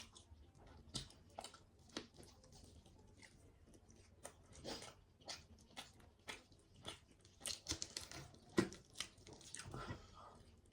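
A person chewing and biting food up close, with many short, irregular crunches and clicks.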